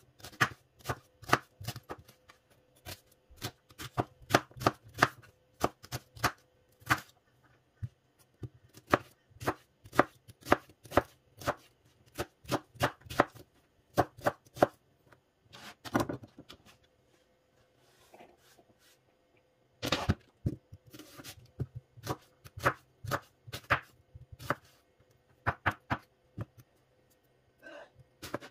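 A chef's knife chopping onion on a plastic cutting board: a run of sharp knocks of the blade on the board, two or three a second, with a couple of short pauses.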